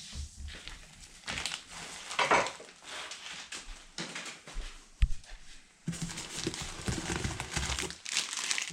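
Packaging rustling and crinkling, with scattered knocks of loose metal lathe parts being handled; one sharper knock about halfway through, and a busier stretch of rustling near the end.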